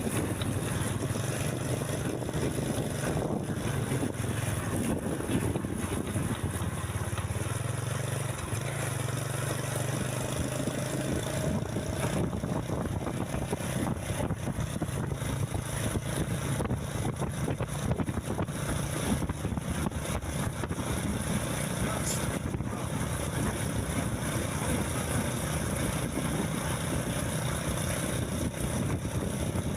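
A motor vehicle engine running with a steady low hum under continuous road noise. The hum rises slightly in pitch for a few seconds near the first third.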